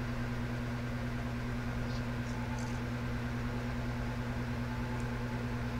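Steady low hum over faint hiss, with a few faint short ticks about two seconds in and again near the end.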